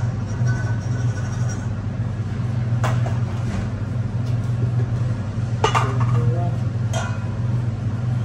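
Stainless steel mixing bowls clinking and knocking several times against the stand mixer's bowl and a metal tray as dry ingredients are tipped in, over a steady low hum of kitchen machinery.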